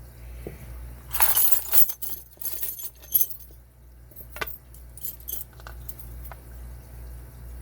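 Metal clinks, rattles and scraping as a brass padlock with a removable core is handled and taken apart, with a few sharp clicks of small metal parts.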